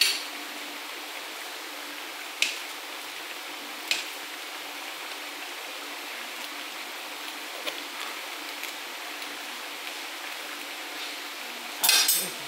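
Seafood paella simmering in a wide paella pan, a steady bubbling hiss from the boiling broth. A few sharp clinks of a spoon against the pan, with a short rattle of clinks near the end.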